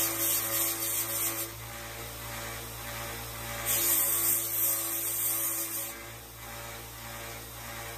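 Small bench belt sander running steadily, with the steel head of a body hammer pressed to the belt twice, each time adding a loud, high grinding hiss: the first spell ends about a second and a half in, the second lasts about two seconds from around four seconds in.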